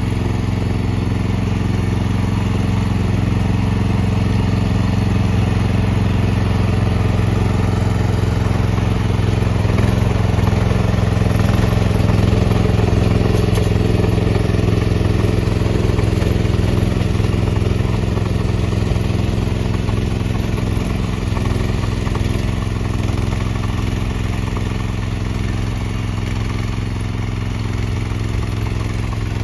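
Engine of a walk-behind crawler-track snowblower running steadily under load as it clears a path through deep snow, a little louder about halfway through.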